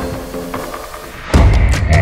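Background music with a heavy beat. A loud, deep bass hit comes in about two-thirds of the way through, and a busier beat follows.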